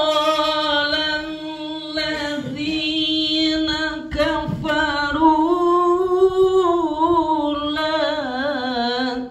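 A solo voice singing long, drawn-out melodic phrases through a microphone, with wavering ornaments on the held notes. It breaks off briefly for breath twice.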